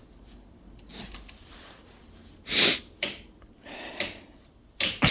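A person sniffing several times through a runny nose, short breathy sniffs with the loudest about halfway through. Three sharp clicks, about a second apart near the end, fit the oscilloscope's selector knobs being switched.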